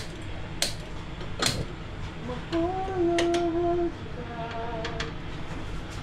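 A large aluminium pot being shifted on a gas stove's metal grate, giving a few sharp knocks. A person hums two short held notes midway, the first one loudest.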